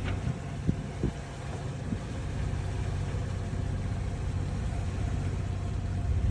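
A sailboat's inboard engine running with a steady low drone, with a couple of light knocks about a second in.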